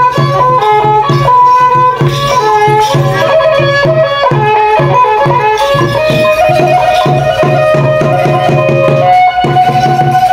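Khmer traditional ensemble music for the Chằng dance: a melody line with fast trills about the middle, over a steady drum beat.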